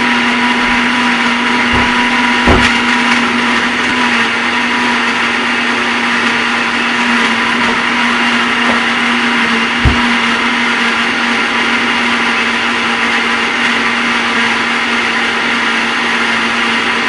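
Old countertop blender running steadily, blending ice into a protein shake: a constant motor hum under dense whirring noise, with a couple of short knocks.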